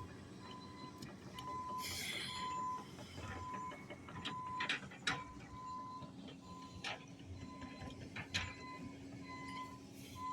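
Backup alarm on demolition equipment beeping steadily at one pitch, about one beep every 0.7 seconds, over a low engine hum, with a few sharp knocks in the middle.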